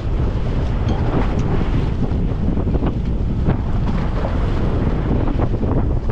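Heavy wind buffeting the microphone on an open fishing boat underway, with waves washing along the hull.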